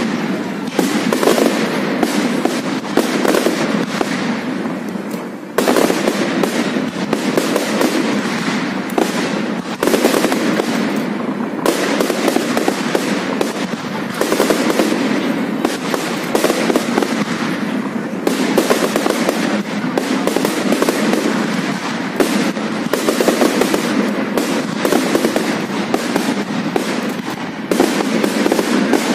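Fireworks display at close range: a dense, continuous barrage of crackling and bangs, with new loud volleys breaking in every few seconds.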